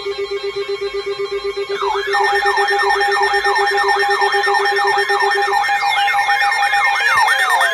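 Layered electronic emergency alert tones. A fast-pulsing low buzz is joined about two seconds in by a rapid up-and-down siren-like wail and a steady higher tone. The buzz stops a little past halfway, and a long falling tone comes in near the end.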